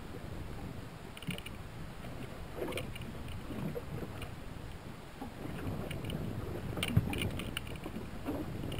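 Water sloshing and slapping against a small aluminum boat's hull, with light wind, and a few short ticks and knocks; a sharp knock about seven seconds in is the loudest.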